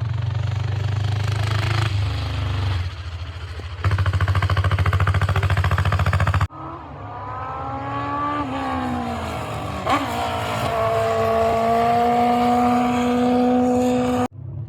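Engines of classic racing vehicles running hard under acceleration. The sound breaks off abruptly several times. In the longest stretch one engine rises in pitch, drops at a gear change, climbs again and then holds a steady high note, with a single sharp crack partway through.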